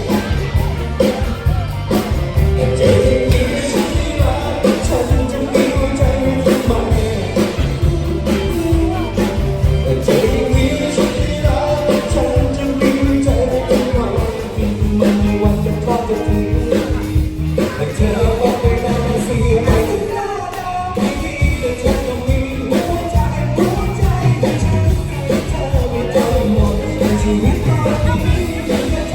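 Upbeat song with a singer over a steady beat, playing without a break.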